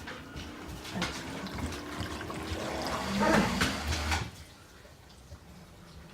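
Water rushing and splashing inside an LG dishwasher running after its drain blockage was cleared, louder for about a second from around three seconds in, then settling quieter.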